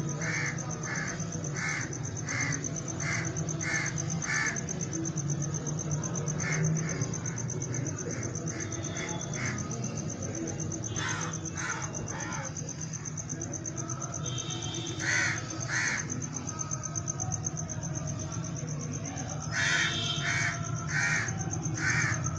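A bird calling in runs of short repeated calls, about two a second, with pauses between the runs. A steady high-pitched whine and a low hum run underneath.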